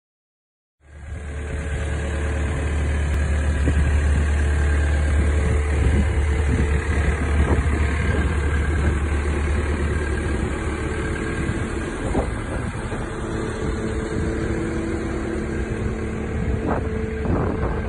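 Diesel engine of a Takeuchi TB290 excavator idling steadily, with a few short knocks near the end.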